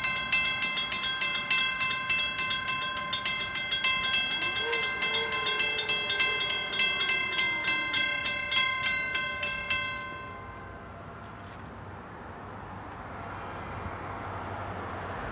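Railroad grade-crossing warning bell ringing steadily, about two or three strikes a second, and stopping about ten seconds in as the gates go up. After it, a low steady background hum.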